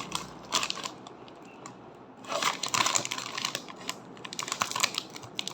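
Plastic snack bag crinkling and rustling in crackly bursts as the chips inside are handled.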